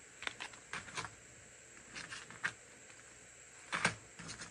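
Plastic blister packs of fishing jigs being handled and set down on a wooden table: a scatter of light crinkles and taps, with a louder clatter near the end.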